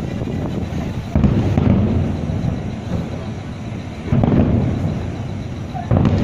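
Fireworks shells bursting in the air: three deep booms, about a second, four seconds and six seconds in, each rumbling away over a second or so.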